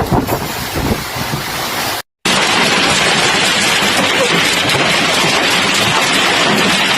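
Storm wind buffeting the microphone, then after a brief cut a steady, loud hiss of heavy rain and wind in a violent storm.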